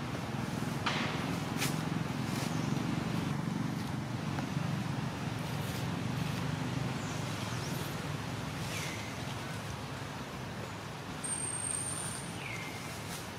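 Steady low outdoor rumble, like distant traffic, with a couple of clicks near the start, a few short falling chirps and a brief high whistle near the end.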